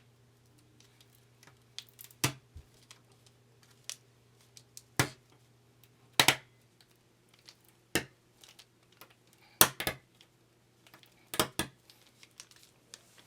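Sharp, irregular clicks and clacks of small hard keyboard parts being handled during a custom mechanical keyboard build: about six louder clacks among lighter ticks, over a faint steady low hum.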